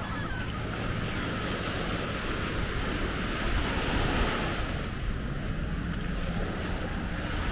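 Sea surf washing onto a beach, swelling about halfway through and then drawing back, with wind rumbling on the microphone.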